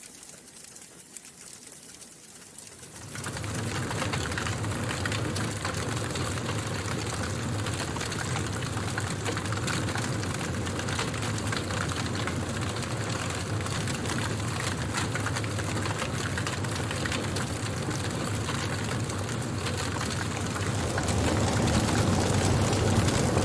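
Wood fire crackling and hissing: sparse pops at first, then, about three seconds in, a sudden jump to a dense run of crackles over a low rumble of flame, growing louder again near the end.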